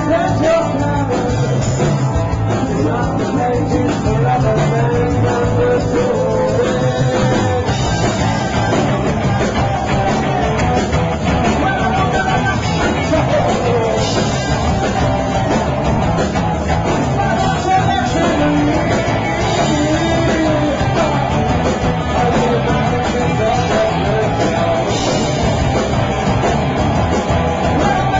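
Rock band playing a song with a singer, loud and steady, picked up on a small camcorder's built-in microphone.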